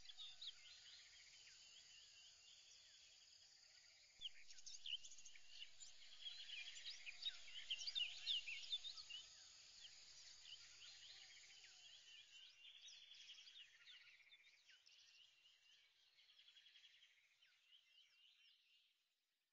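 Faint chorus of small birds chirping, many quick high chirps overlapping, busiest about five to nine seconds in and fading away after about fourteen seconds into near silence.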